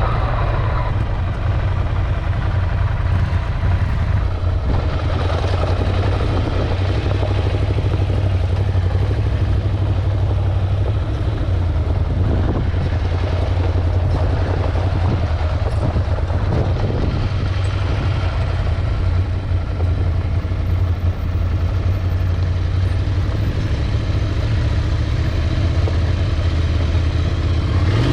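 Ducati Scrambler motorcycle's air-cooled L-twin engine running steadily under riding, its low beat dipping slightly in pitch about halfway through.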